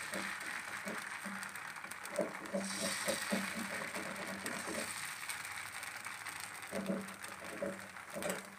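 Steel ladle spreading dosa batter in circles on a nonstick tawa, its bottom scraping the pan in short repeated rasps that come in spells and stop near the end.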